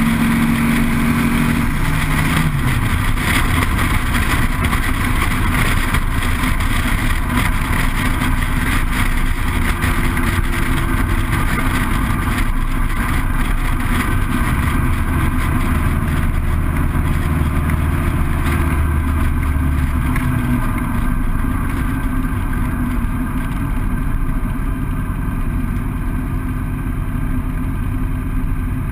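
Dune buggy's 2180cc air-cooled VW flat-four engine run hard down a quarter-mile drag strip, heard from the open cockpit under a heavy rush of noise. It holds a steady note at the start line, launches about two and a half seconds in, and eases off somewhat in the last several seconds.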